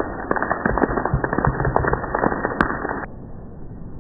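Heavy rain pelting a flooded paved courtyard: a dense crackle of big drops splashing into standing water and onto hard ground. About three seconds in it drops abruptly to a softer, steady hiss of rain.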